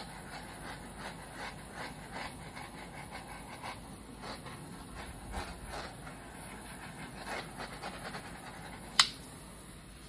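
Steady hiss of a handheld heat tool passed back and forth over wet epoxy resin to pop surface bubbles, with one sharp click about nine seconds in.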